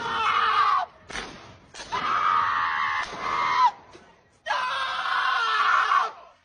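A woman screaming at the top of her voice: three long, high-pitched screams with short breaks between them.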